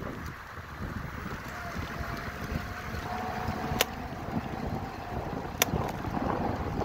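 Wind buffeting the microphone and bicycle tyres rolling on an asphalt path, a steady rumbling noise, with two sharp clicks in the middle of it.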